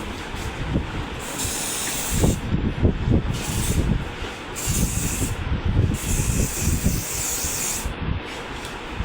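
Aerosol hairspray hissing in four bursts of about one to two seconds each, with short gaps between them.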